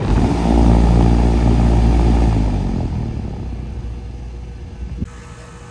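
Large three-phase condenser fan motor on a rooftop unit kicking on with a contactor clack, humming loudly at first and then easing off as it runs. A click about five seconds in is followed by the hum dropping away as it cuts out again. This is rapid short cycling, which the technician traces to failing low-ambient head-pressure switches.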